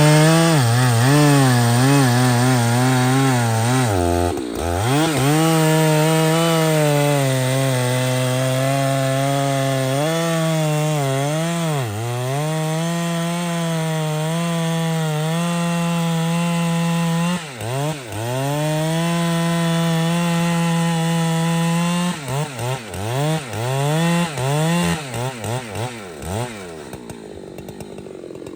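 Large professional chainsaw running hard while cutting through trembesi wood, its pitch sagging each time the chain bogs in the cut. Near the end the throttle is blipped on and off several times, then the saw falls quiet.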